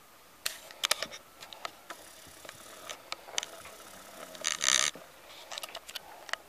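Boxer puppy scuffling on carpet against a couch: scattered clicks and scrapes, with a short loud rustle about four and a half seconds in.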